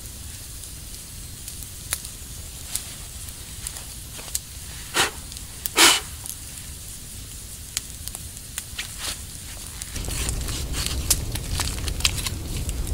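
Wood campfire crackling, with scattered sharp snaps and two louder pops about five and six seconds in. About ten seconds in it gets louder and the crackles come thicker.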